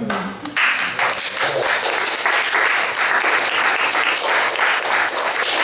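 Audience applauding: many hands clapping in a dense, steady patter that swells in about half a second in and holds.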